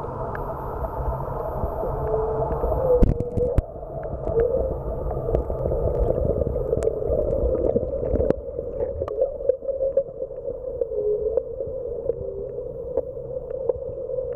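Underwater drone of a boat motor heard through the water: a steady hum that wavers slightly in pitch over a low rumble, with scattered clicks and a louder thump about three seconds in.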